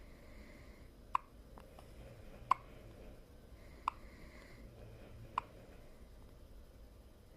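Newborn baby hiccuping: four short, sharp hiccups, evenly spaced about a second and a half apart.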